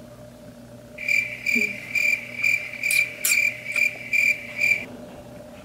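Crickets chirping in an even pulsing trill, about two and a half chirps a second for nearly four seconds, starting and stopping abruptly: the comic cricket sound effect for an awkward silence. A faint steady room hum lies underneath.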